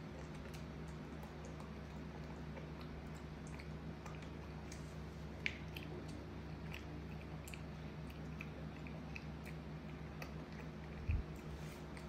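A small monkey chewing and smacking on rice, with many small wet clicks from its mouth and fingers picking at a plastic plate, over a steady low hum. A dull low thump about a second before the end is the loudest sound.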